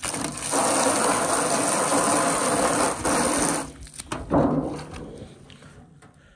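Water from a garden hose splashing into a shallow plastic tub, stopping after nearly four seconds, followed by a few quieter handling sounds.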